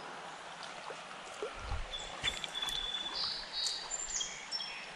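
Creek water running, a steady rushing hiss, with a few faint clicks and a brief low thump, and some short high-pitched tones in the second half.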